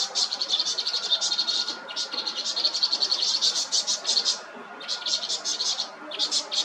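Vinous-throated parrotbills giving rapid, high, scratchy chattering calls in quick runs with short breaks: the alarm calls of small birds at a nest under attack by a predator.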